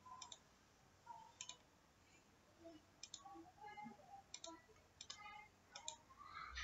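Computer mouse clicking, a dozen or so faint clicks at irregular spacing, some in quick pairs, as the string count in the software is stepped up.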